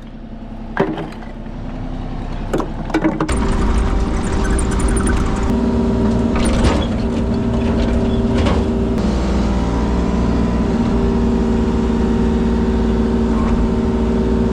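A construction machine's engine running hard and steadily after being throttled up about three seconds in, with a few sharp knocks before that.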